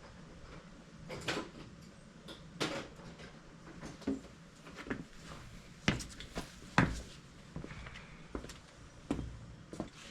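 Irregular knocks, clunks and scrapes of parts being handled at the mini excavator's air filter housing, about a dozen separate hits, the loudest two a little past the middle.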